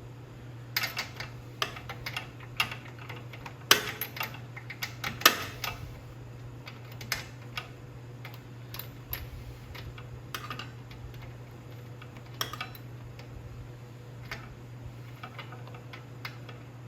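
Irregular clicks and taps of hand tools and metal parts being handled while working on a small engine, loudest about four and five seconds in, over a steady low hum.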